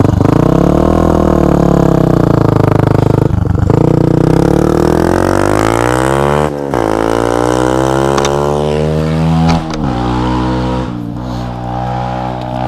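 Beta RR 125 LC motorcycle engine through a GPR aftermarket exhaust, revving. The pitch rises and falls, breaks off briefly a few times, climbs to a peak about halfway through, falls away, then settles into a steadier, lower note near the end.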